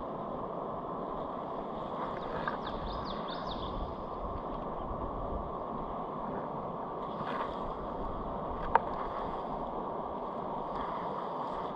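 Steady rush of river water, with a single sharp click about nine seconds in.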